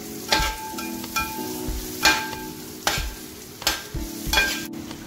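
Metal spatula stirring coconut pieces, ginger and garlic frying in hot coconut oil in a metal uruli. The oil sizzles steadily, and the spatula clanks against the pot with a short ring about once a second, six times.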